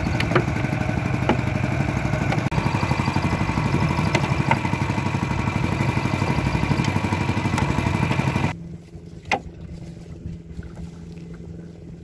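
Small fishing boat's engine running steadily under way, then throttled back to a quiet idle about eight and a half seconds in as the boat slows to lay its net.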